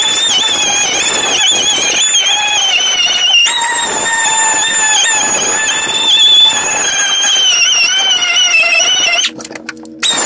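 Pneumatic die grinder running at high speed, grinding rust off a steel frame rail and floor pan: a steady high-pitched whine whose pitch wavers as the wheel bites into the metal. It cuts out briefly near the end.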